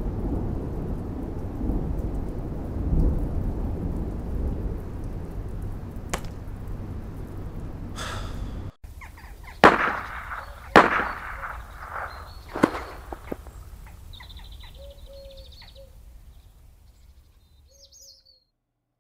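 A deep, rumbling ambience that fades steadily and cuts off abruptly about nine seconds in. Then three sharp knocks a second or two apart, and a few faint ticks trailing away to silence.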